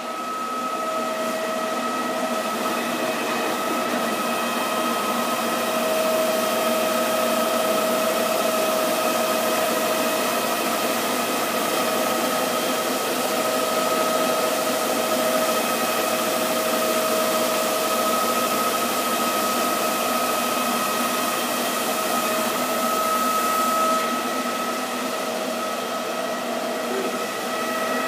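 Namco Floor Wash electric floor scrubber running steadily as it scrubs wet tile: a steady motor whine over a hiss. The hiss softens a little near the end.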